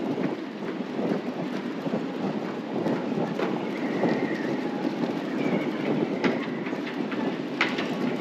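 Strong wind blowing, a steady rushing noise, with scattered clatters and a few short squeaks.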